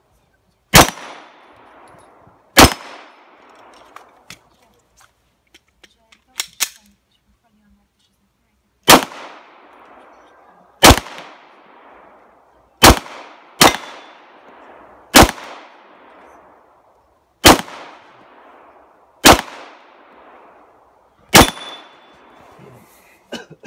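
Handgun shots on an outdoor range, about ten single shots fired one every second or two, each with a short echoing tail. There is a pause of several seconds after the first two shots, with a few faint pops and clicks in it.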